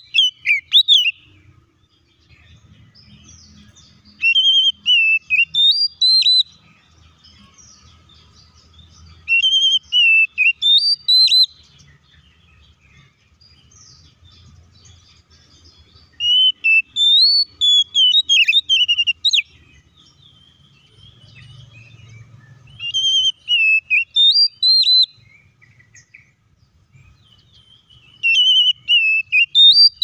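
Oriental magpie-robin (kacer) singing in loud bouts of quick whistled notes that rise and fall, each phrase about two seconds long and repeated roughly every five to six seconds, about five times.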